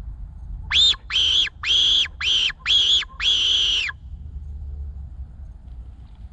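Fox-hunting predator call (chamariz) blown as a lure: six high-pitched cries in quick succession, the last one drawn out, then they stop. A steady low wind rumble runs underneath.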